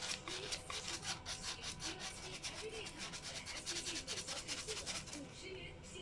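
Origami flapping bird's paper wings rustling as its tail is tugged back and forth, a rapid rhythmic crinkling several strokes a second that weakens near the end.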